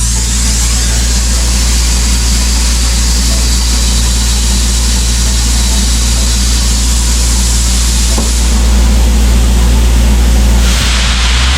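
Diesel air compressor engine running steadily under a loud hiss of compressed air from a blowpipe blowing dust off. The hiss grows brighter shortly before the end.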